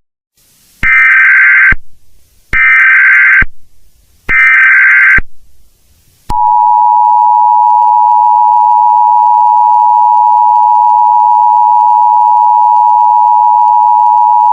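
Emergency Alert System tones: three short bursts of the SAME digital header, each just under a second long, then from about six seconds in the steady two-tone EAS attention signal, held for about eight seconds before it cuts off. This marks the start of an emergency alert broadcast, just before the voice message.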